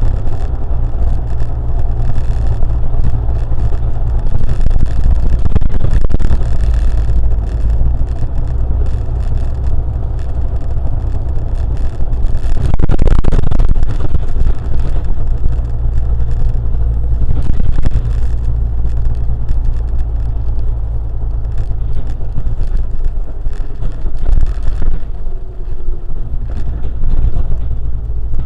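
Steady low rumble of road and engine noise from a vehicle driving in traffic, with a louder swell about halfway through.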